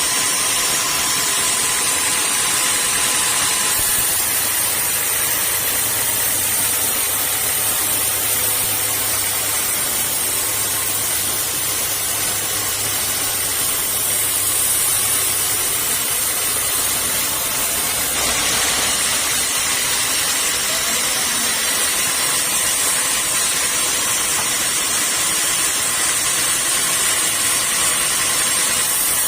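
Sawmill saw machinery running with a loud, steady hissing rush. The sound shifts abruptly about 4 seconds and 18 seconds in.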